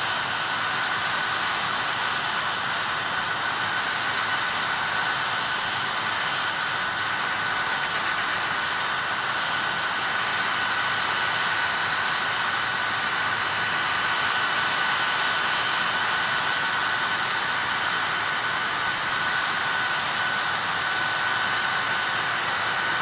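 Rolls-Royce Spey turbofan engines of a Hawker Siddeley Nimrod running steadily on the ground: a constant jet whine with two fixed high tones over a broad rush of air, neither rising nor falling.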